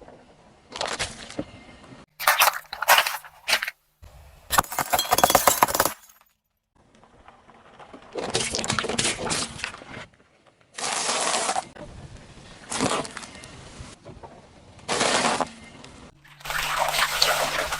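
Things crunching, cracking and breaking under a car's tyres, heard as a run of separate short crushing sounds, each cut off abruptly before the next begins.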